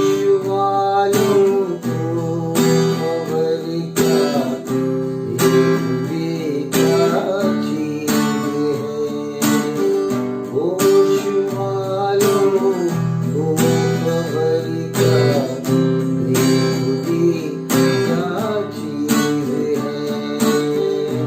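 Acoustic guitar strummed in a steady rhythm through the G major, E minor, C major and D major chord progression.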